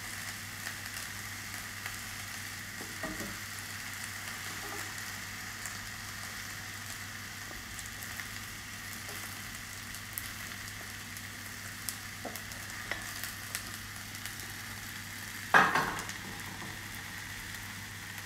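Asparagus, peas, broad beans and new potatoes sizzling steadily in a skillet, stirred with wooden spoons that tap and scrape lightly against the pan. One louder knock comes near the end.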